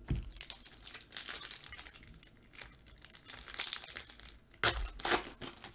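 Foil trading-card pack being crinkled and torn open by hand, with two louder crackles near the end.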